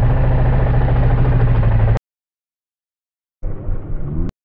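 Motorcycle engine running steadily. It cuts off abruptly about halfway through, and after a gap of silence a second short stretch of engine sound starts and cuts off again.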